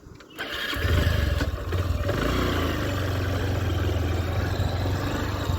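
A motor vehicle's engine running steadily, with a deep hum. It comes in suddenly about half a second in and holds on at a fairly even level.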